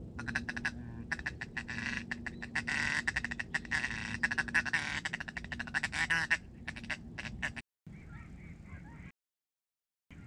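Duck quacking in a fast, loud run of calls that breaks off about seven and a half seconds in.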